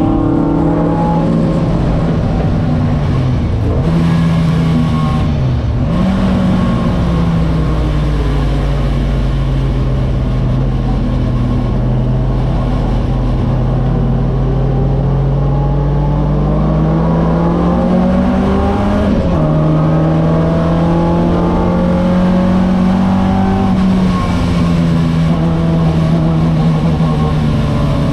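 Alfa Romeo 1600 GTA race car's twin-cam four-cylinder engine heard from inside the cabin at racing speed. Its note climbs slowly through long stretches and drops sharply twice, about five and nineteen seconds in.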